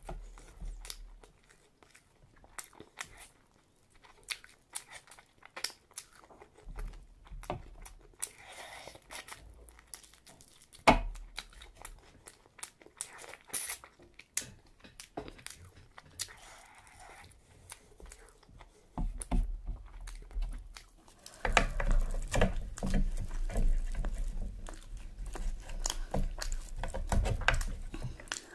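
A person eating a mutton curry meal close to the microphone: chewing and biting with scattered small clicks. It becomes louder and denser in the last third.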